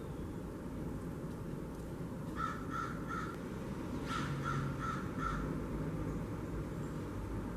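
Blue jay calling harsh 'jay' notes: a quick run of three, then a run of five a second later, over a steady low background rumble.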